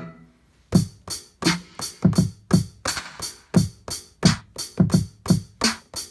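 Drum-kit samples from an Akai MPC Live tapped out on its pads: a steady run of hits about three a second, each a low thump with a bright crisp top. The run starts just under a second in.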